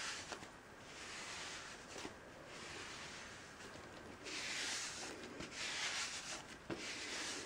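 Faint, soft swishing strokes of a self-tanning applicator mitt rubbed over the skin of a lower leg, about five strokes with short pauses between them.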